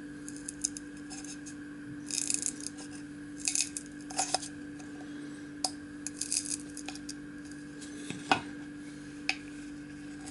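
Metal tin lid being worked loose by hand: irregular metallic clicks and scrapes, with a few sharper clicks.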